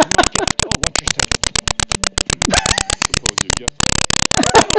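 A rapid, regular ticking from a recording glitch, about ten clicks a second, laid over faint TV dialogue. The ticking stops briefly nearly four seconds in and then carries on.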